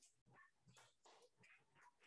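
Near silence: faint room tone with a distant murmur of voices.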